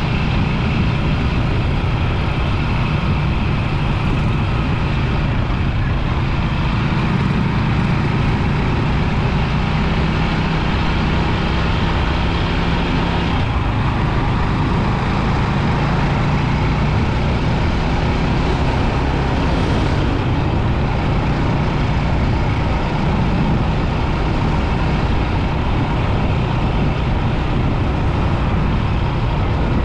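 Rusi 250 motorbike engine running steadily while riding, under a continuous rushing road noise.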